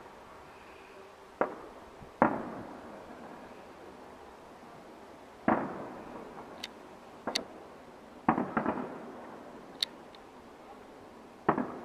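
Aerial firework shells bursting one after another: about six booms at irregular intervals, several close together near the end, each trailing off in a rolling echo, with a few sharp high cracks in between.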